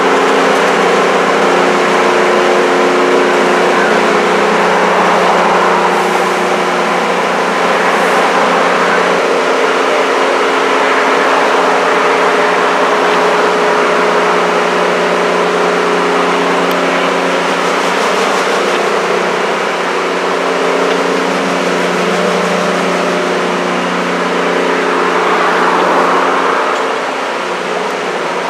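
Royal Canadian Pacific heritage passenger train rolling past on the rails: a steady, loud rumble of wheels on track with a constant drone of several held tones.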